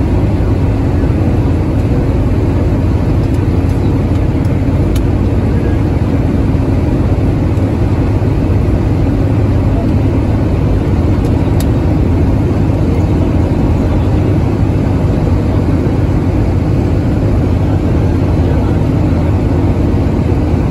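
Bus engine running steadily at motorway speed, a constant drone mixed with road and wind noise, heard from inside the cab.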